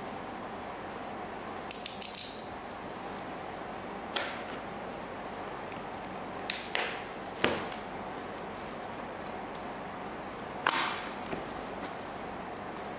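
Box and packaging being handled and opened: a scattering of short, sharp scrapes and knocks, one about two seconds in, another near four seconds, a cluster around seven seconds and a longer one near eleven seconds, over a steady background hiss.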